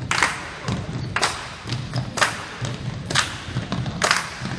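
Five sharp thumps, evenly spaced about once a second.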